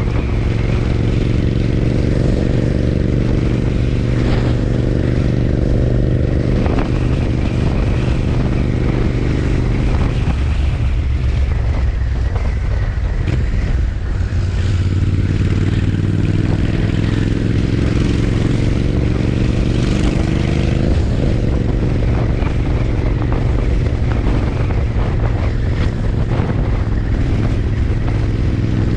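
Royal Enfield Interceptor 650's parallel-twin engine and exhaust running steadily while under way. The note drops and thins for a few seconds around the middle, as the throttle eases off, then picks up again.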